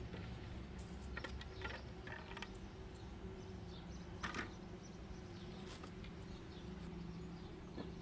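A few light knocks and rustles of hands handling a plastic electrical enclosure and a cardboard-boxed thermostat, over a steady low hum.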